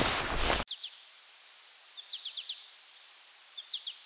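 A brief burst of footsteps and clothing rustle that cuts off abruptly, followed by quiet outdoor ambience in which small birds chirp in short runs of quick, high notes, four times.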